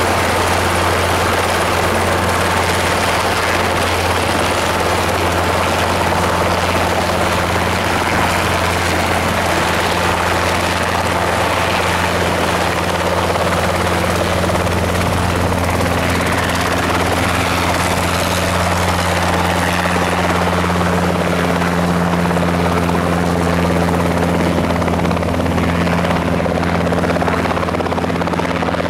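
Robinson R22 two-seat piston helicopter running at close range, its engine and rotor making a steady, loud drone as it lifts off into a low hover. A steady hum within it grows stronger over the second half.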